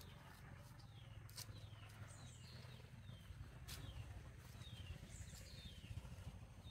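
Faint outdoor ambience: a small bird repeating short falling chirps, about two a second, over a low steady rumble, with a couple of sharp clicks.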